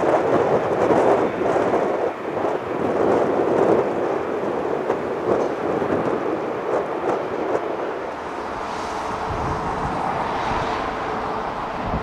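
Jet engine noise of a twin-engine airliner coming in to land, a steady rushing sound mixed with wind on the microphone. About eight seconds in, a steady hum and a deeper rumble join it.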